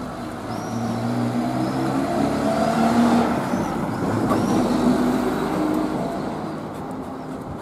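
A car passing on the street, its engine growing louder to a peak about three to five seconds in and then fading away. A few bird chirps sound above it.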